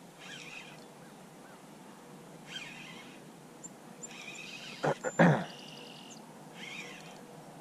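A bird calling a short chirping phrase about every two seconds, with three quick sharp knocks about five seconds in, the loudest sounds.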